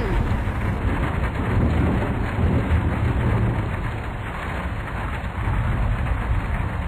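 Steady storm-like rushing noise over a deep rumble, easing slightly midway.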